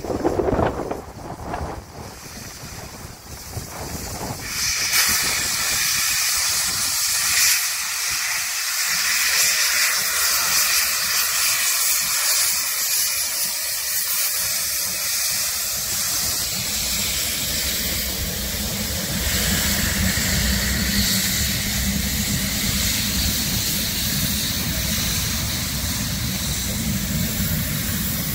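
DR class 01.5 steam express locomotive 01 509 rolling past close by, venting steam around its cylinders in a loud, steady hiss that starts about four seconds in. In the second half the deeper rumble of the train's wheels and coaches on the track joins in.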